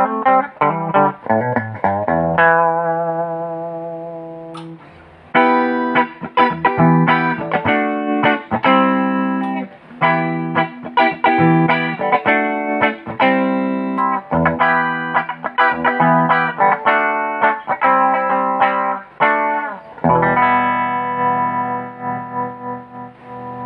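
Century Dark Series guitar played solo for a sound check. A chord rings out and fades, then come quick runs of picked single notes, and near the end another chord is held and left to ring.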